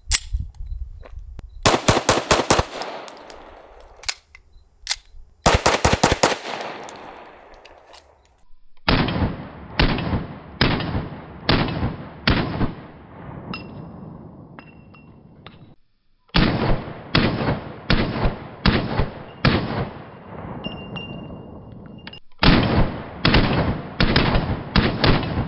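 Gunfire from 9mm competition pistols, a Laugo Alien and a Staccato XC. There are two quick clusters of rapid reports in the first few seconds, then three strings of evenly spaced shots, each shot a sharp crack with a short echo tail. A faint high ring follows some of the shots.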